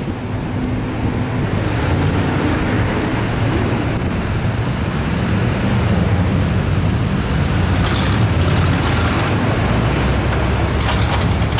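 A vehicle's engine running steadily at low speed as it drives along a rough dirt trail, heard from inside the vehicle, with two short bursts of hiss about eight and eleven seconds in.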